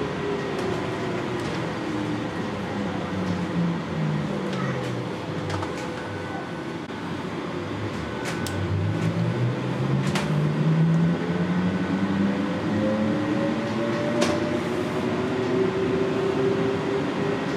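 NAW/Hess trolleybus's electric traction drive whining, its pitch falling for the first several seconds as the bus slows, then rising steadily as it accelerates again. Underneath is steady road and tyre noise on wet tarmac, with a few sharp clicks in the second half.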